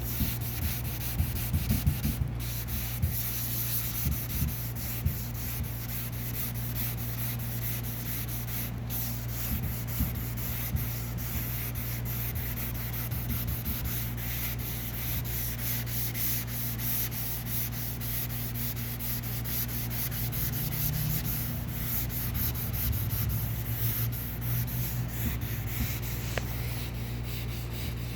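Car paint being wet-sanded by hand with sandpaper, a continuous rough rubbing with uneven strokes, to level out deep key scratches. A few sharper scrapes stand out in the first few seconds.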